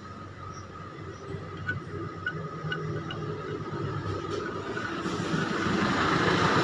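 Steady rumble of a motor vehicle engine running nearby, growing louder over the last two seconds. A few faint short high pips come about two seconds in.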